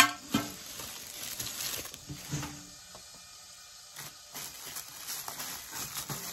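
Plastic bag liner rustling and crinkling as it is tucked into a metal popcorn tin, with scattered taps and clicks from handling the tin, the sharpest right at the start.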